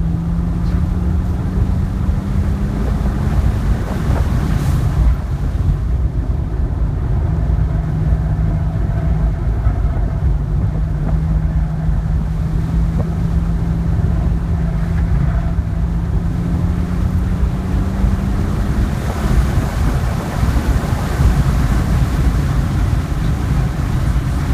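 Cabin sound of a 2010 BMW 3 Series being driven hard: a steady engine drone under heavy wind and road rush. The engine note dips once about three seconds in and then climbs slowly. From about twenty seconds in, the wind rush grows louder as the car speeds up on a straight.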